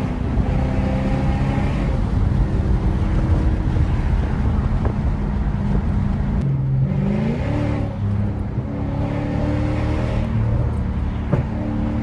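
Lexus GS430's 4.3-litre V8 running with its catalytic converters removed, a steady engine drone as the car drives. About seven seconds in the pitch dips and then climbs again as the engine revs up.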